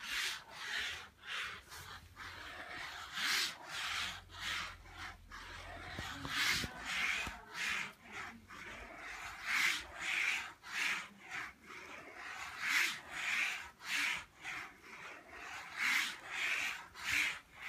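Pen of a turntable-driven wooden pantograph drawing machine scratching across paper, with the wooden arms rubbing at their joints. It is a scratchy rubbing that swells and fades in a repeating rhythm with each sweep of the arms.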